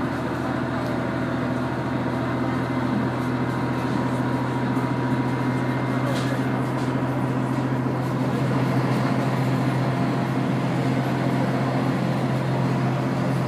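Steady drone of a KiHa 100 diesel railcar's engine heard from inside the car, a constant low hum with a faint high tone above it.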